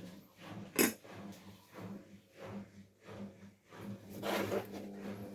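A sharp knock about a second in and a short scraping rush near the end, over a steady low hum.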